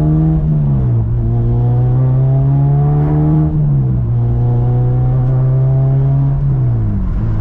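Honda Civic Si four-cylinder engine heard from inside the cabin while driving. Its note climbs slowly and then drops away three times, about every three seconds.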